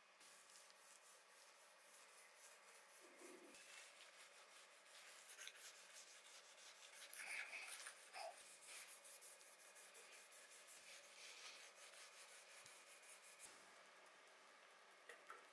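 Small sanding pad rubbing the plastic body shell of a model car in quick, faint back-and-forth strokes.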